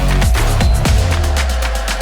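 Electronic dance music with a fast beat, heavy kick drum and deep bass.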